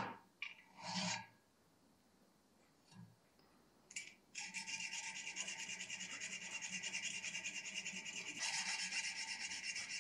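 Hand file rasping against a 1070 carbon-steel knife blade to crisp up the plunge line: a couple of single strokes at the start, a pause, then from about four seconds in a long run of quick, short, even strokes.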